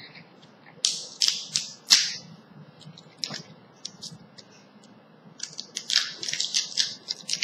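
Handling noise of small hard objects: sharp clicks and scratchy scrapes, a few spread through the first two seconds and one a little past three seconds, then a denser run of them near the end.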